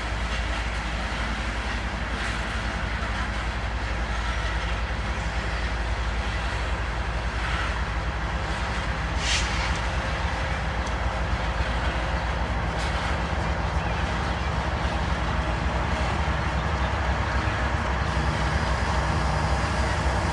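Loaded coal train rolling past: a steady rumble and clatter of wheels on rail. A low hum grows louder near the end.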